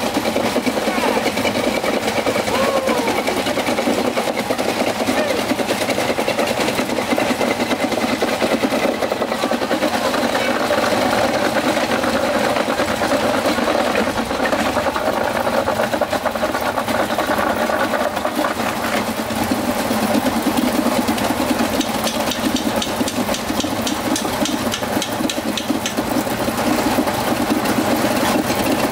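Busy street-market ambience: many voices chattering, with small engines running.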